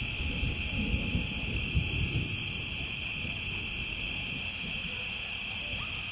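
Night chorus of crickets: a steady, high-pitched chirring with no break, over a low rumble.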